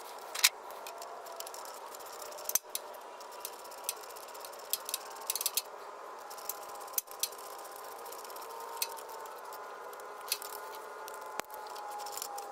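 Scattered metallic clicks and clinks of a ratchet wrench and socket on a long extension, tightening a starter mounting bolt, some clicks coming in quick runs. A steady hum runs underneath.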